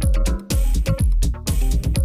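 Electronic dance music played live on drum machines and synthesizers: a steady kick-drum beat about twice a second, each hit dropping in pitch, under a held synth tone and short synth notes.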